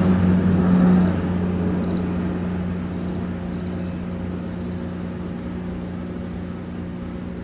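A steady low motor hum fading slowly away, with faint short high chirps repeating every second or two.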